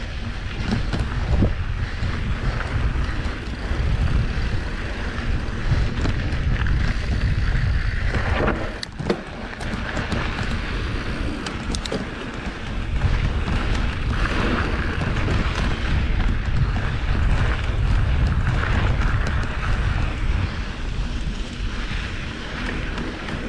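Wind buffeting the GoPro's microphone with a heavy low rumble as a mountain bike rolls over a dry dirt trail, tyres crunching on grit and small stones. A few sharp clicks and rattles from the bike come around the middle.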